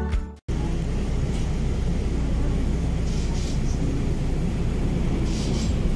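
Steady engine and road rumble inside the cabin of a moving bus, starting after background music cuts off about half a second in.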